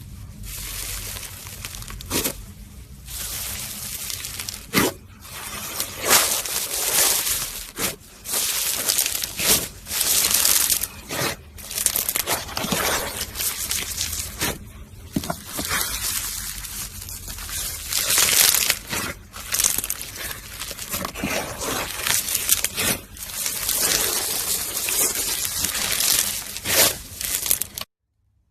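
Crunchy slime being squeezed and pressed by hand: dense crackling and popping with many sharp snaps, rising and falling in loudness, that stops abruptly near the end.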